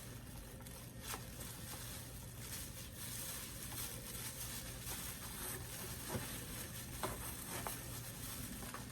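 Plastic rustling and crinkling as items are picked up and handled, with a few sharp clicks about a second in and again near six and seven seconds.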